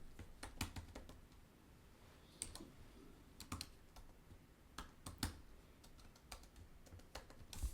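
Computer keyboard keystrokes typed one at a time, scattered and irregular, while a password is entered at a login prompt.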